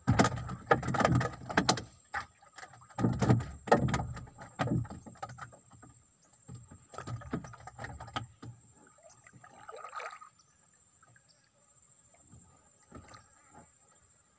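Knocks and thumps against a small wooden boat's planks, in clusters that are loudest in the first five seconds and die down after about eight seconds.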